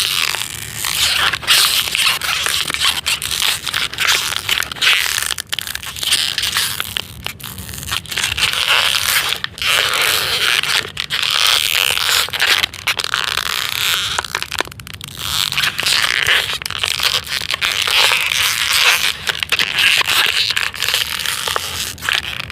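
Plastic bottle being squeezed and crumpled by hand, crackling continuously with dense sharp crinkling clicks, like brittle bones snapping, easing briefly a couple of times.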